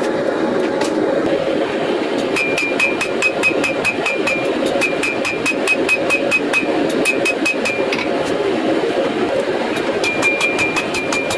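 Hand hammer forging a glowing Damascus steel billet of welded chain mail on an anvil: rapid blows, about four a second, each with a bright anvil ring, with a pause of about two seconds near the start. A steady roar runs underneath.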